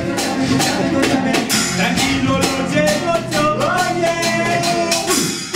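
Lively music with acoustic guitar and a steady percussive beat, with a voice singing through the middle.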